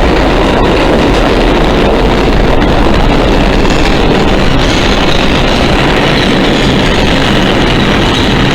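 New York City Subway 3 train at the platform, a loud steady rumble and rail noise with a few faint clicks.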